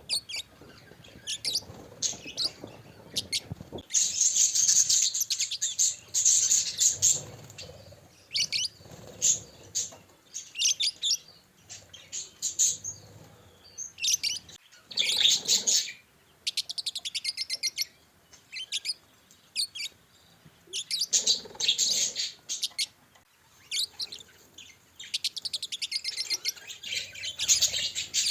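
Budgerigars chirping and chattering: bursts of high chirps and quick runs of short repeated notes, broken by brief pauses.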